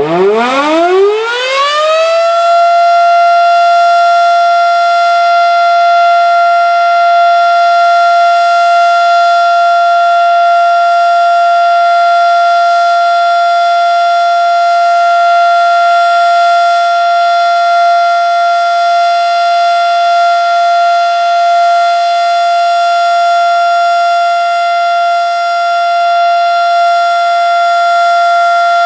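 Federal Signal Model 5 outdoor tornado siren winding up: it rises in pitch over the first two seconds or so, then holds one steady, loud tone. This is the siren's alert signal, sounded as a routine test.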